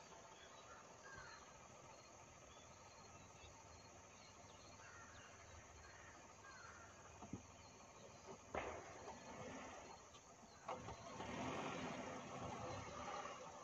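Distant Renault Triber crawling slowly over a rocky dirt track, faint, with a few sharp knocks from about halfway and its noise growing louder near the end as it comes closer. Small birds chirp faintly in the background.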